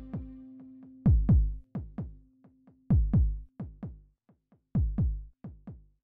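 Electronic background music: paired drum-machine kick beats about every two seconds with fainter echoing hits between them, over a held low synth note that stops about three seconds in. The beats grow fainter toward the end.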